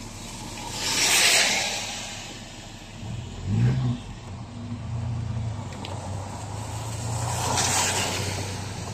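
Car running along a rain-soaked road, heard from inside the cabin: a steady engine hum with tyre noise on the wet surface. Two loud swells of wet hiss come about a second in and near the end, and the engine rises briefly in pitch a little before halfway.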